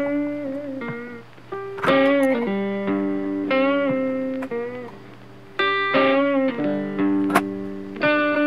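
Background music: an electric guitar playing held, plucked notes and chords, some bent in pitch.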